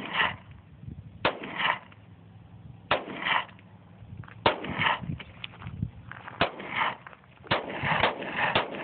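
Sig Sauer SP2022 9mm pistol firing single shots about every second and a half, each with a short ring-out, the shots coming faster near the end.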